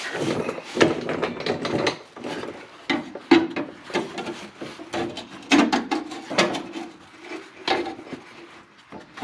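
Irregular knocks, scrapes and clatter of metal parts and tools being handled, with a short ringing tone after some of the knocks.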